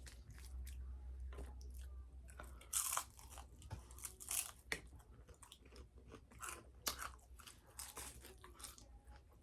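Close-miked biting and chewing of crispy fried chicken: a run of crisp, crackly crunches, loudest about three seconds in and again around four and a half and seven seconds.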